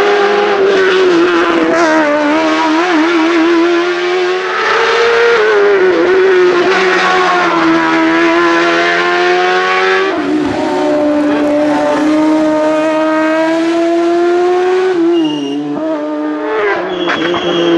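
Loud racing-car engines at high revs on a hillclimb. The pitch keeps rising and dropping as the cars shift gear and lift off into the bends. The note changes suddenly about ten seconds in and again near the end, as a different run takes over.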